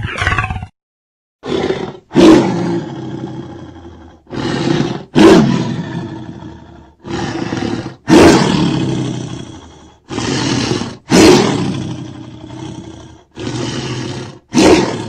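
TriStar Godzilla roar sound effects played one after another, about every three seconds. Each is a short opening cry followed by a loud roar that trails off over a couple of seconds.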